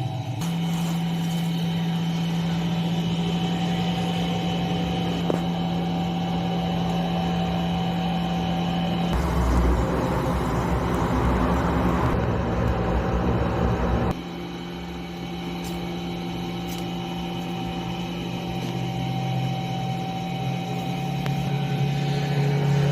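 A motor running steadily with a constant hum. For about five seconds in the middle a louder rough, noisy sound joins it, then cuts off suddenly.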